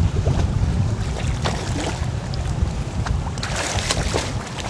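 Wind rumbling on the microphone and water slapping at the boat's side; a little over three seconds in, a hooked cobia starts splashing and thrashing at the surface beside the landing net.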